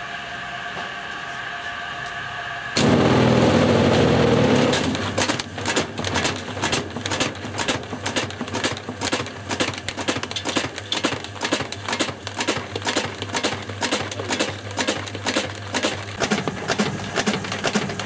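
A steady mechanical whine, then about three seconds in the Fisher & Paykel 42-pole Smart Drive motor is switched on with a sudden loud surge and the dry drum turns. An old VCR and sealed lead-acid batteries tumble and bang about inside it in a rapid, irregular clatter.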